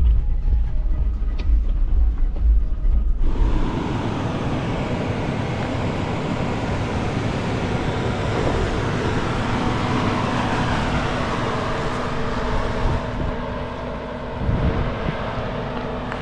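Low rumble for about three seconds, then a sudden switch to a steady rush of engine, tyre and wind noise from a 4x4 driving a dirt trail.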